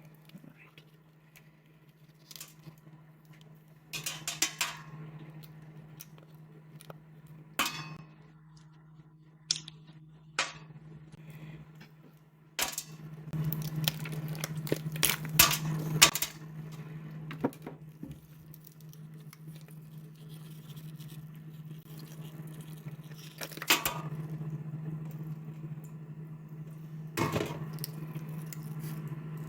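Irregular clicks, clacks and knocks of plastic pet-fountain parts being handled and fitted together, busiest about halfway through, over a steady low hum.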